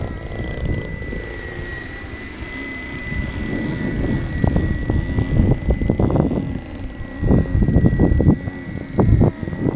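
A 470-size radio-controlled BO 105 scale helicopter flying, with a steady high whine from its rotor drive. Gusts of wind buffet the microphone, growing louder and choppier about halfway through.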